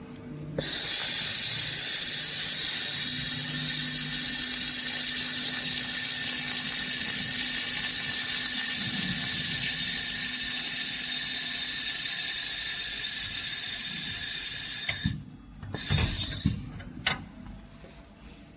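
UMW-2000W air-cooled laser welding machine welding 3 mm brass: a loud, steady hiss starts sharply about half a second in and cuts off after about fourteen seconds. A short second burst follows about a second later.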